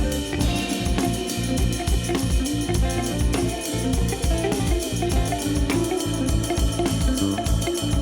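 Background music with a steady drum beat, guitar and organ.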